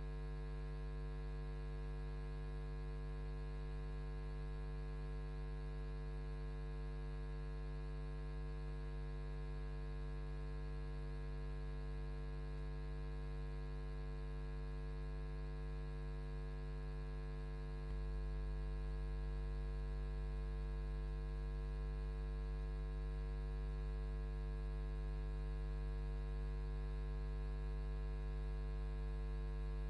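Steady electrical mains hum with many overtones, buzzy and unchanging, with no stadium sound beneath it; it gets slightly louder a little over halfway through.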